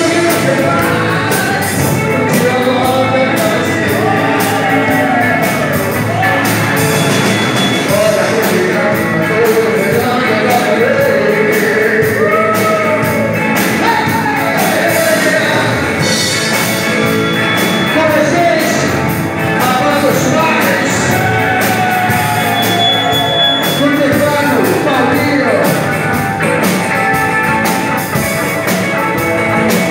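Live rock band playing with a male singer: guitars, a drum kit and a keyboard under a sung lead vocal.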